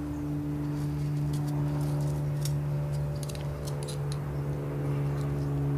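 Thin steel flywheel end-play shims clinking lightly against each other and the gauge as they are sorted and measured. A steady low hum runs underneath.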